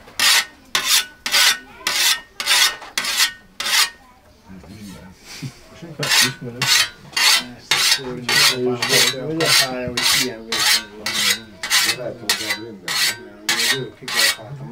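A scythe blade being honed with a whetstone: quick, rhythmic scraping strokes, about two to three a second. The strokes pause about four seconds in and resume about two seconds later.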